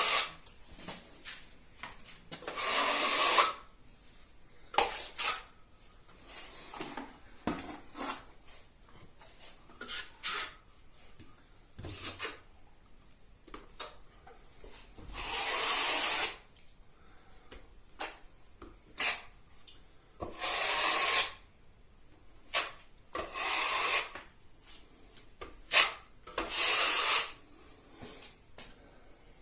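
Marshalltown steel plastering trowel scraping joint filler along taped plasterboard joints: several strokes of about a second each, with short clicks and taps between them.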